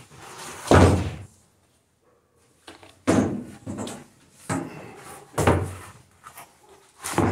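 Wooden boards being set down and shifted on a plywood jig on the saw table: a series of about five heavy thuds, the loudest about a second in.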